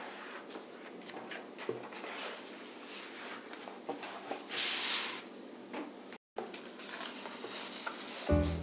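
Hands handling a sheet of leather, with soft rustles and light taps and one louder rustle about halfway through. After a brief cut, sheets of paper are handled, and music starts near the end.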